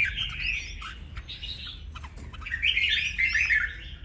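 Red-whiskered bulbul, a wild-caught bird about a week in the cage, calling in a run of quick chirps and short up-sweeping notes; the calls are soft at first and grow louder about two and a half seconds in.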